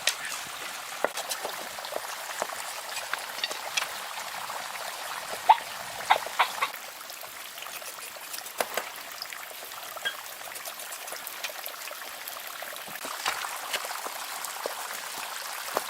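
Water trickling steadily, with scattered small splashes and drips.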